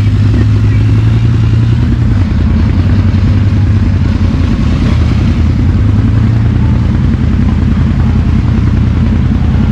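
Can-Am XMR 850 ATV's V-twin engine running through a Looney Tune slip-on exhaust while being ridden. It is loud and steady, easing off slightly about two seconds in and picking back up around five seconds.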